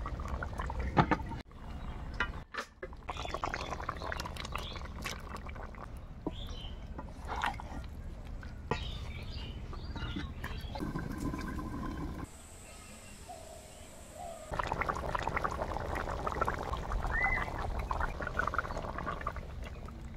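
Tomato chicken curry bubbling and sputtering in an iron wok over a wood fire, with scattered sharp knocks and clicks. The sound changes abruptly a few times and drops quieter for a couple of seconds past the middle.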